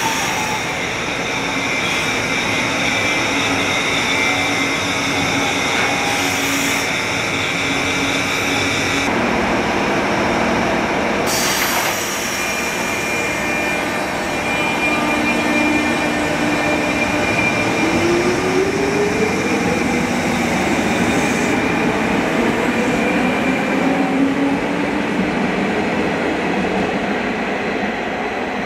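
JR 201 series electric train accelerating away from a station, with the whine of its armature chopper control over wheel and rail noise. High steady tones run through it, and about two-thirds of the way in a lower motor tone glides up in pitch as the train gathers speed.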